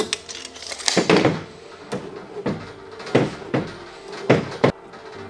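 Tools and copper pipe being handled on a table: a tape measure in use and a tubing cutter being clamped onto copper pipe, heard as a series of sharp clicks and knocks, some with a short ring.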